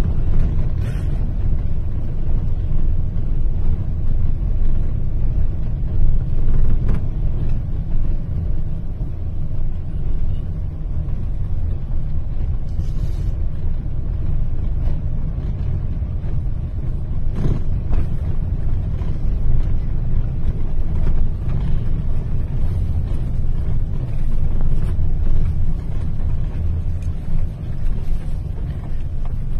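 Steady low rumble of a car on the move, heard from inside the cabin: engine and road noise, with a few faint knocks.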